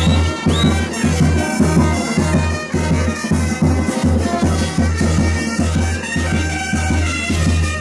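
Live festival band music: reedy wind instruments play a sustained melody over a steady bass drum beat.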